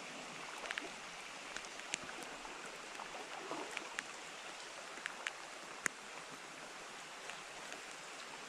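Steady rush of a shallow rocky creek under falling rain, with scattered sharp ticks.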